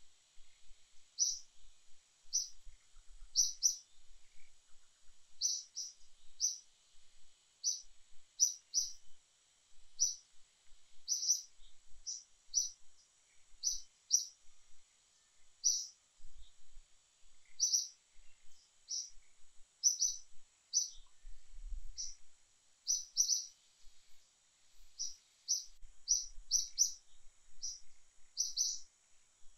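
Infant macaque screaming in short, high-pitched squeals, about one or two a second, on and on: the distress cries of a baby refused the nipple by its mother.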